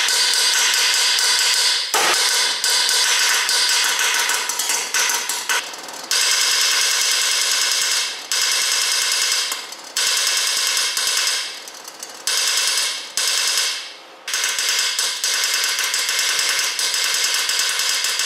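A home-built pulse detonation engine firing as a rapid, continuous train of sharp pulses. It cuts out briefly and picks up again several times, running unevenly because its tune is not yet right.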